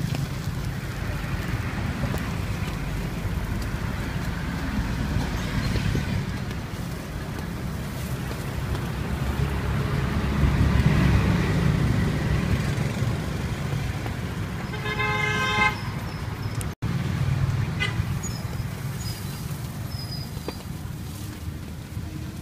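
Steady street traffic rumble, with one short vehicle horn toot about two-thirds of the way through.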